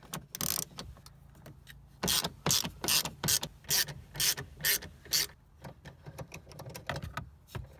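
Hand ratchet clicking in a run of short, evenly spaced bursts, one per back-swing, as it backs out a T27 Torx screw. The clicking turns fainter for the last couple of seconds.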